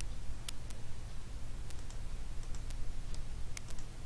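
Computer mouse buttons clicking, a dozen or so short sharp clicks at irregular spacing, some in quick pairs, over a steady low hum.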